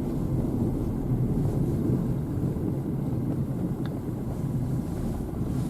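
Car cabin noise while driving slowly over packed snow: a steady low rumble of engine and tyres.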